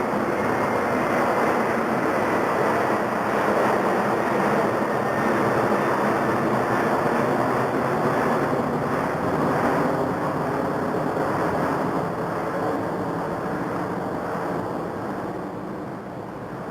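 Boeing 747's four jet engines at takeoff power: a steady broad roar that fades gradually over the last few seconds as the plane climbs away.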